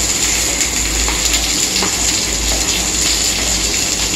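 Sliced onions sizzling and spattering in hot oil in a kadai: a steady loud hiss with faint pops.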